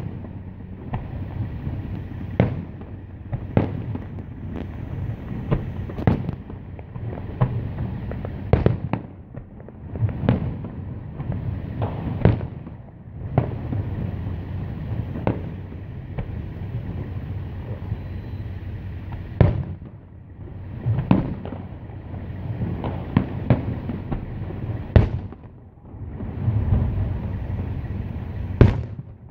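Aerial fireworks shells bursting one after another at irregular intervals, sharp bangs every second or two over a steady low rumble.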